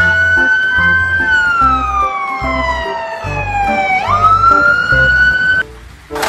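Fire engine siren wailing: a high tone that holds, falls slowly over about three seconds, then rises quickly again and cuts off suddenly near the end.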